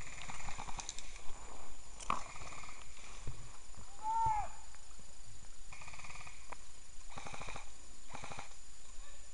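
Hard, rasping breaths of someone running through forest undergrowth, with footsteps, brush crashing and a sharp knock about two seconds in. The breathing comes in separate bursts in the last few seconds, and there is a short whistle-like tone, rising and falling, about four seconds in.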